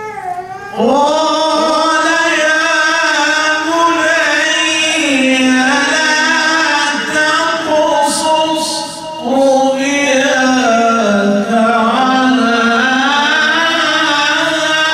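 A man's solo melodic Quran recitation (tajweed), sung through a microphone in long, held phrases with ornamented turns of pitch. It begins about a second in and pauses briefly for breath about two-thirds of the way through before the next phrase.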